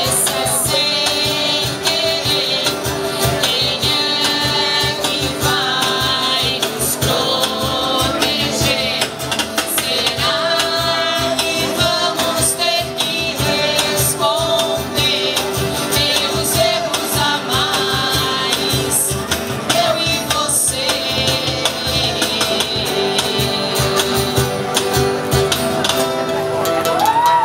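Live acoustic band: several strummed acoustic guitars over a steady cajón beat, with a sung vocal line, amplified through stage speakers.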